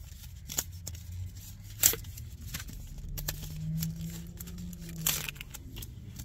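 Foil Pokémon card booster pack crinkling and crackling as it is handled and worked at to tear it open, with one sharper crackle about two seconds in.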